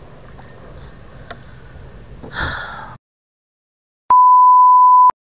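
Wind and lapping-water noise, with a short splash about two and a half seconds in as the musky thrashes in the landing net. The sound then cuts out completely, and about a second later a loud, steady, high electronic bleep lasts about a second.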